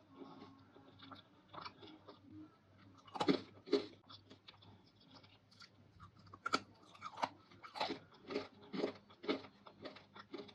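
Close-miked crisp crunching and chewing of dried fruit and vegetable pieces. There are two loud bites about three seconds in, then a run of crunches at about two a second in the second half.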